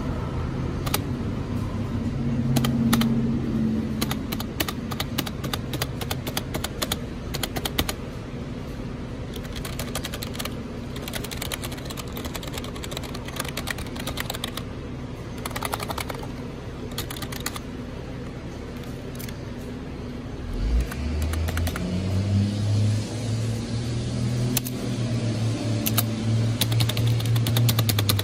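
Spacebar and keys of an old, dust-caked computer keyboard pressed again and again, giving runs of sharp clicks. Underneath there is a low steady hum, which rises in pitch and grows louder about 21 seconds in.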